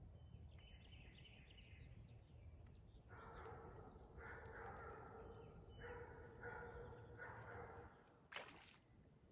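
Faint animal calls, about six in a row, each half a second to a second long, then one short sharp noise near the end.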